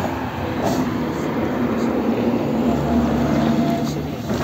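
A motor vehicle's engine running past with a steady rumble and low hum, loudest around the middle and fading near the end.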